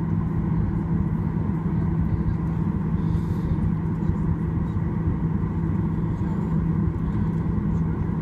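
Steady cabin hum of a Boeing 737 on the ground with its jet engines running at low power, heard from inside the cabin as an even drone with a low steady tone.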